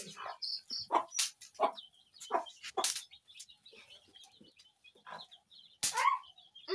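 A hen clucking in short, separate notes while feeding on grain, with her chicks peeping faintly throughout.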